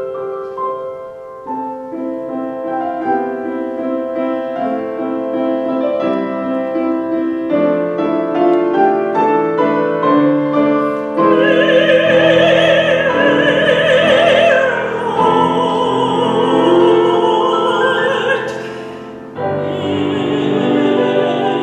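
Grand piano playing a solo passage, then a soprano voice entering about halfway through and singing over the piano with a wide vibrato. The voice breaks off briefly near the end and comes back in.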